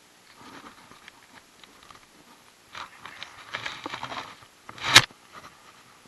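Close handling noise as a hooked largemouth bass is unhooked by hand: irregular scraping, rustling and small ticks, busiest a little past the middle. One sharp, loud knock about five seconds in.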